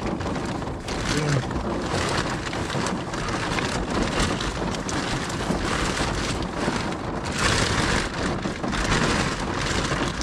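Steady rain falling on a car's roof, heard from inside the car.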